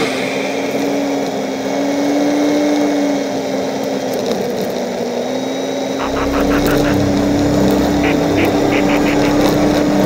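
Off-road vehicle engine running steadily under way, its pitch dipping slightly and rising again, with a deeper rumble and a rattle joining about six seconds in.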